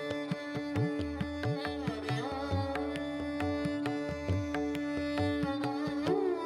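Background music in Indian classical style: plucked string notes with sliding pitches over a steady drone, with regular hand-drum strokes.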